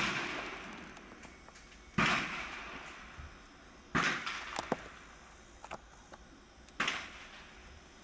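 Three gunshots, about two to three seconds apart. Each trails off in a long echo, with a few faint clicks between them.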